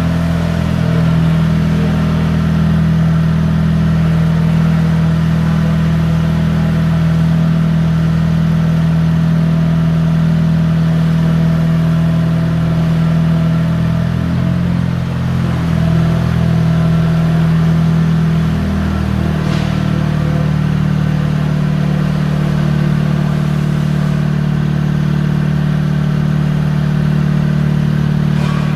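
Diesel truck engine running steadily under crane operation, powering the Terex Telelect C5050 crane's hydraulics, with faint steady whine tones above the engine drone. The engine note shifts slightly about two-thirds of the way through.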